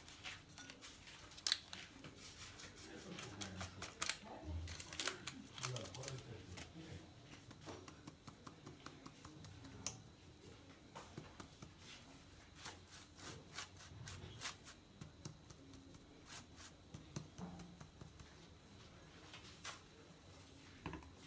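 Small metal mesh sieve being shaken and tapped over a bowl to sift baking powder: faint, irregular light taps and clicks with a soft rustle between them.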